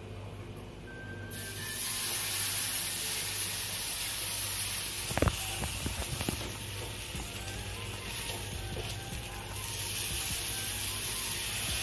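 Thoplu batter sizzling on a hot tawa as it is poured and spread with a ladle, a steady hiss that comes in about a second in. A sharp metal clink about halfway through, followed by a few lighter taps.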